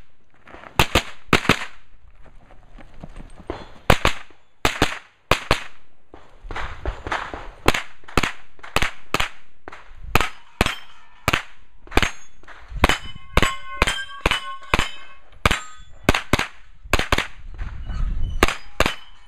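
A Colt 9mm carbine firing dozens of shots in quick strings with short pauses between them. Steel targets, including the plates of a Texas Star, ring with clear metallic tones when hit, most noticeably in the second half.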